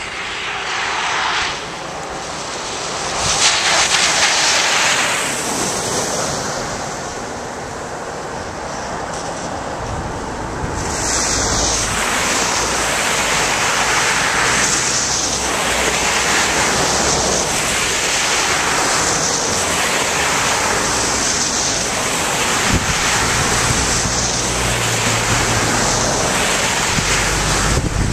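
Floodwater rushing and splashing in repeated whooshing surges, about one every second and a half from partway in, with wind buffeting the microphone.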